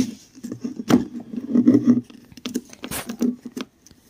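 Plastic Shin Godzilla action figure being handled and its leg joint twisted: irregular rubbing and tapping with a few sharp clicks, the loudest about one second and three seconds in.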